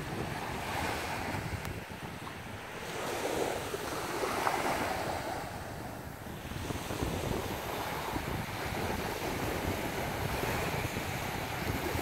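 Small ocean waves breaking and washing up the sand, one wash swelling and fading about four to six seconds in, with wind gusting over the microphone.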